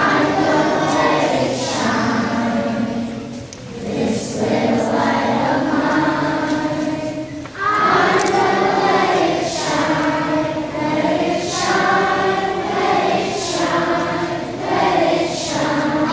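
A group of voices singing together in phrases, with sung words audible.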